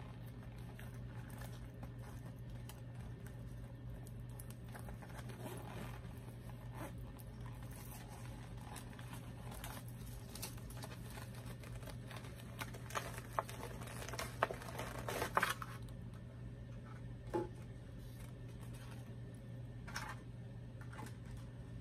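Tissue paper crinkling and rustling as it is handled and pulled out of a small quilted plush pouch, with scattered handling clicks that bunch up about two-thirds of the way through. A steady low hum runs underneath.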